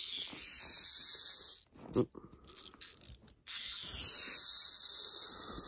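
Vintage clockwork camera self-timer whirring as its wound spring runs down through the escapement. The whirr breaks off after under two seconds for a few sharp clicks, then starts again about three and a half seconds in and runs steadily on.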